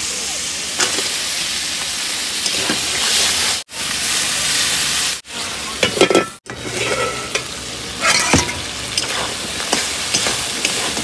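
Masala-coated crab pieces sizzling as they fry in oil in a kadai, stirred with a metal spatula that clatters and scrapes against the pan now and then. The sizzle breaks off abruptly a few times.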